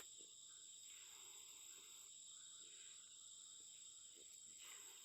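Faint, steady high-pitched chirring of night insects.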